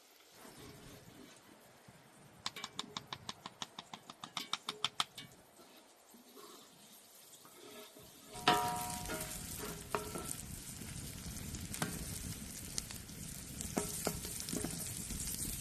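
A quick run of sharp taps for a couple of seconds, then about eight seconds in a sudden metallic clatter as food goes into a hot pan, followed by steady sizzling as it fries.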